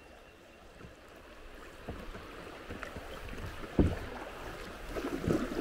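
Kayak paddle strokes dipping into and splashing through the river current, getting louder as the paddling picks up. A sharp hit about four seconds in is the loudest sound.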